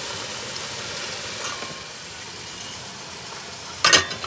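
Sliced fresh mushrooms sizzling in hot oil in a frying pan, a steady hiss. A single loud clatter near the end.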